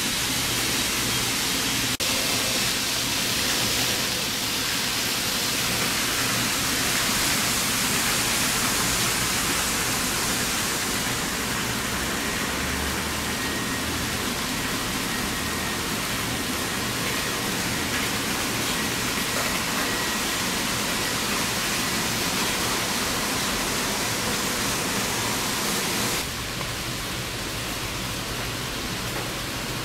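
Steady rolling and whirring of several model trains running on a layout's track, a continuous hiss-like rattle of small wheels on rails and small motors. The level steps down a little near the end.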